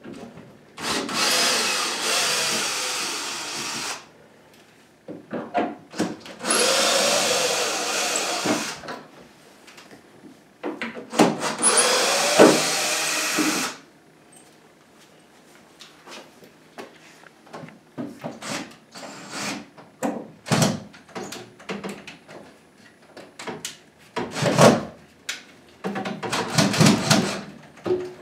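Cordless drill backing out the three screws that hold two cabinet face frames together: three runs of a few seconds each, the motor speed rising and falling as the trigger is worked. After that, scattered clicks and knocks of the drill and screws being handled against the wooden cabinets.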